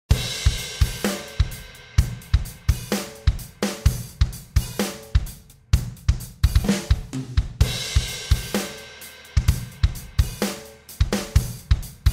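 Intro music: a driving drum-kit beat with kick drum, snare and cymbals.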